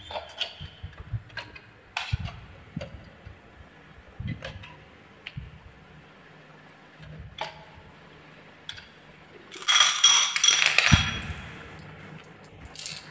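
Handling sounds of a plastic toy truck being set against a wooden marble run: scattered light knocks and clicks. About ten seconds in comes a loud burst of glass marbles clinking together, lasting a second or so.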